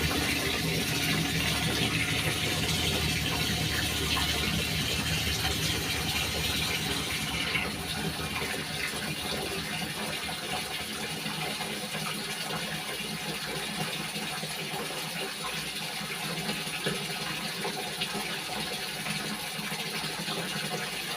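Manual single-tub washing machine running with its motor humming under a steady rush of water in the tub. About seven and a half seconds in the motor hum and the brighter hiss drop away, leaving a softer steady water sound.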